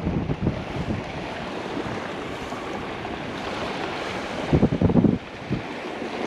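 Wind buffeting the microphone over a steady wash of surf, with low rumbling gusts near the start and again about four and a half seconds in.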